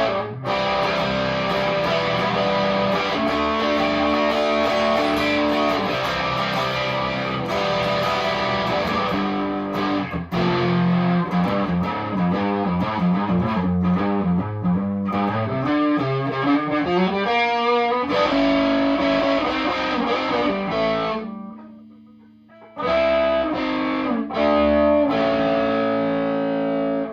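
Electric guitar playing riffs and chords with heavy amp distortion: a stock Chibson Les Paul Custom on its bridge pickup through a Marshall DSL40 combo's ultra gain channel. The playing breaks off about 21 seconds in and resumes with ringing chords a couple of seconds later.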